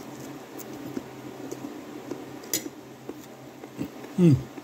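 Eating sounds: a few light clicks of a utensil against a plate, the sharpest about two and a half seconds in, then a short falling hum of the voice near the end.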